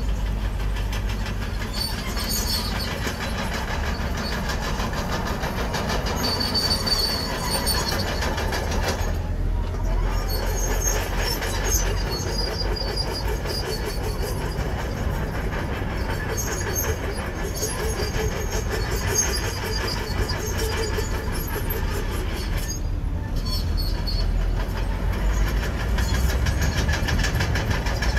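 Komatsu crawler bulldozer working: its diesel engine runs steadily under a low rumble, with the clanking and squealing of its steel tracks.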